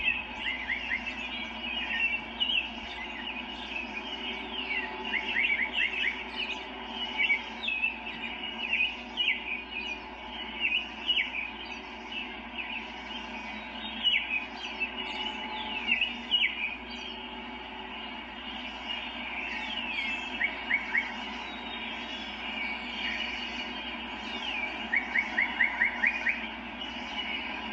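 Woodland songbirds chirping and calling, with many short downward-sweeping chirps and a few quick trills of four to six notes, over a steady background hum.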